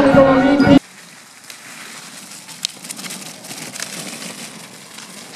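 Music that cuts off abruptly under a second in, followed by faint outdoor ambience with scattered small clicks and ticks.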